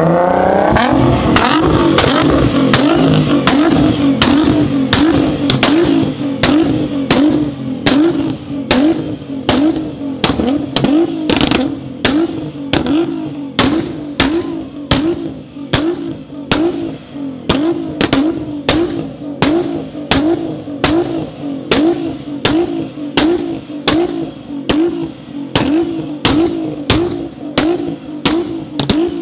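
Nissan GT-R R35's twin-turbo 3.8-litre V6 with a full Akrapovic exhaust. The revs climb in the first second, then the engine is held steadily at high revs, with sharp exhaust pops and bangs about three every two seconds. These are the crackles of a pop-and-bang/anti-lag tune spitting from the exhaust.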